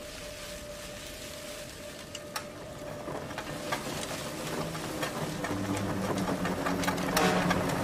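Cartoon wind-up sound effect for a tricycle about to race off: rapid clicking that speeds up and grows louder, turning into a low motor-like rev in the last couple of seconds. A thin steady whistle tone runs under the first half.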